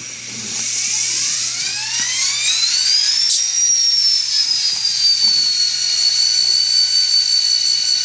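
Recorded diesel locomotive start-up sound from an ESU LokSound decoder, played through a tiny 9x11 mm speaker in a Scaletrains SD40T-2 model. The engine winds up in pitch for about three seconds, dips slightly, then settles into a steady idle.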